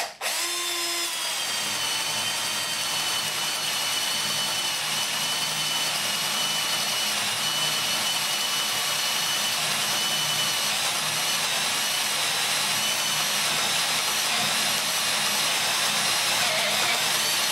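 Milwaukee 12 V drill/driver in first gear, its motor whining steadily as a spade bit bores through a block of wood. It keeps turning without stalling, because low gear gives it enough torque for the load.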